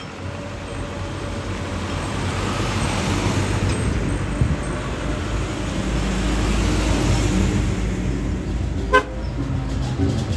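Isuzu trucks driving past at close range, the engine and road noise building as a loaded truck approaches and goes by, with a short horn toot near the end.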